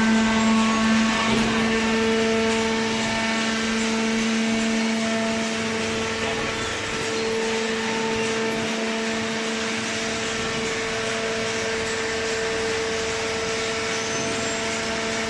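Horizontal hydraulic baler for corrugated cardboard running: a steady machine hum with two held tones over a constant noise haze, from its motor and hydraulic pump.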